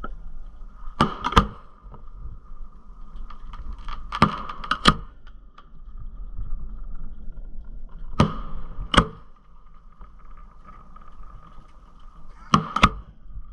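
Aerial fireworks going off: four pairs of sharp bangs, the pairs about four seconds apart, as cues are fired one by one from an electronic firing panel's step button. A faint steady high tone runs underneath.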